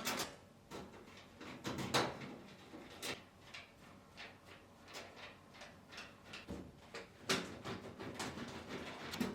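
Faint, scattered clicks and light knocks of screws and a screwdriver being worked on an oven's sheet-metal rear and top panels.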